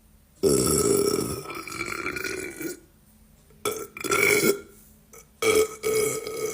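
A man burping three times: a long, loud burp lasting over two seconds, a shorter one, and a third starting near the end.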